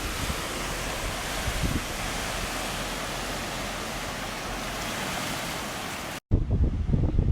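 Strong wind blowing across the microphone, a steady rushing noise. About six seconds in it cuts off abruptly to a louder, gustier low rumble of wind.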